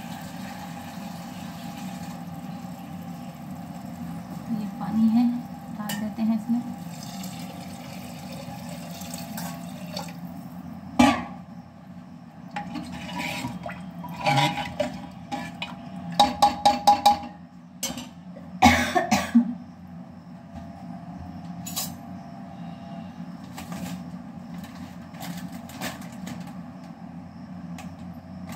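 Metal cooking pots and utensils clinking and knocking while food is prepared. There is a sharp knock about eleven seconds in, a quick run of clinks a few seconds later, and another knock soon after, all over a steady low hum.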